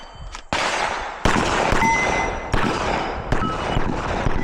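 Pistol shots fired at steel targets, about four in quick succession, with the clang and brief ringing of hit steel plates after some of them. The first shot misses, landing in the berm.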